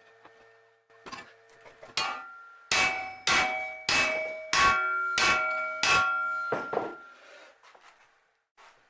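Hammer blows on metal: about nine sharp, ringing strikes, roughly three every two seconds, each ringing at a slightly different pitch.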